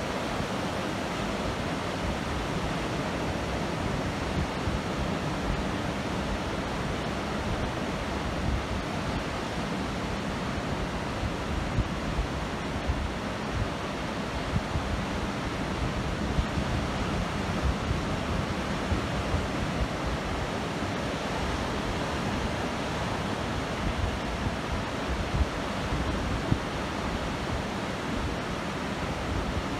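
Ocean surf breaking and washing up a sandy beach: a steady, unbroken rush of noise with a few slightly louder swells. Wind buffets the microphone underneath, adding a low, fluttering rumble.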